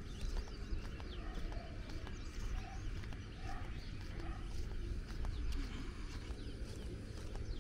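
Footsteps on a paved block footpath at a steady walking pace, about two steps a second, with birds calling around, over a low steady rumble.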